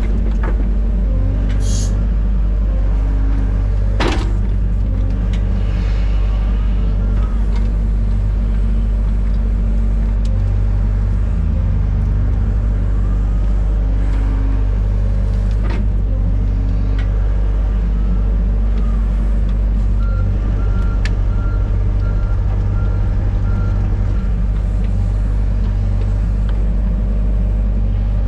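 Excavator's diesel engine running steadily, with a few sharp knocks from the machine working, a few times. About twenty seconds in, a short run of rapid high-pitched tones.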